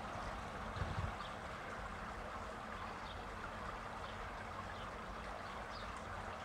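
Steady trickling of running water, with a few faint short high chirps and a brief low rumble about a second in.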